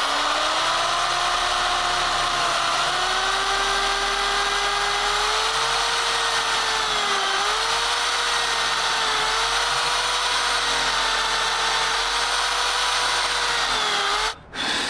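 Electric drill held in a 90-degree drill guide, boring into wood: a steady motor whine whose pitch dips slightly now and then under load. Near the end it stops, gives one short burst, and stops again.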